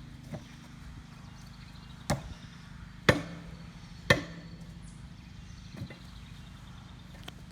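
An old water heater being struck with a hand tool: three heavy blows about a second apart, with fainter knocks before and after. The second and third blows leave a short low metallic ring from the steel shell.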